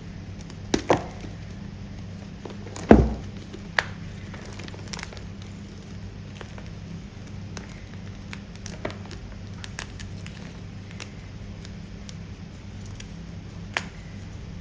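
Crunchy, firm pasted chalk being bitten and chewed close to the mic: scattered sharp snaps. The loudest bite, with a deep thump, comes about three seconds in, and fainter crunches follow over a steady low hum.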